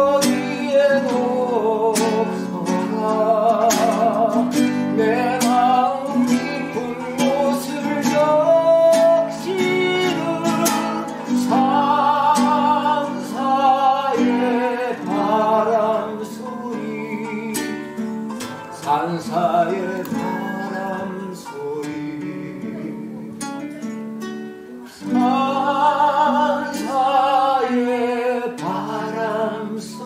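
Live acoustic guitar playing a song, strummed chords with a wordless wavering melody line over them; it eases off a little past the middle and swells again near the end.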